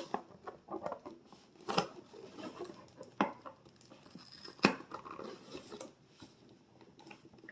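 Toy packaging being handled and tape removed: faint rustling with scattered clicks and snaps, three louder sharp snaps spread through.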